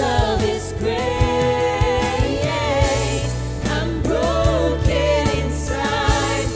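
A church worship band and singers performing a slow contemporary worship song: voices holding and bending a sung melody over steady bass, keys and a regular drum beat.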